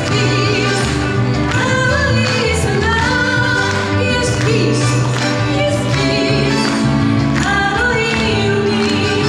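Live band playing with a woman singing into a microphone over a public-address system.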